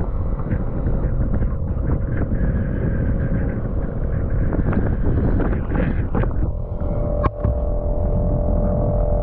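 Boat engine running steadily with a low rumble, and wind buffeting the microphone. A sharp click comes about seven seconds in, after which a steady hum stands out more.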